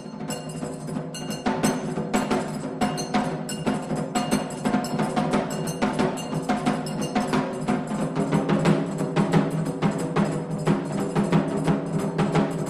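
Japanese taiko drumming music: a fast, driving run of sharp drum strikes with a steady beat over a deep drum pulse.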